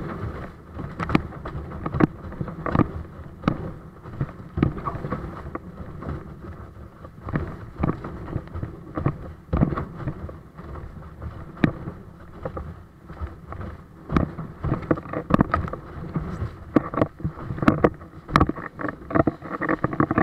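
Bic 135-litre windsurf board planing over choppy water, its hull slapping the chop in irregular sharp knocks over a steady rush of water and wind.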